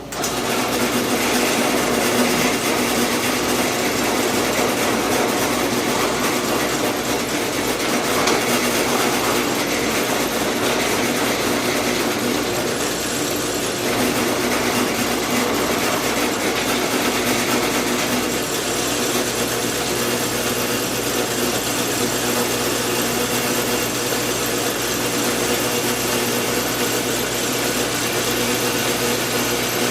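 Drill press switched on, starting abruptly and then running steadily with a motor hum, used to drill holes out to 5/16 inch.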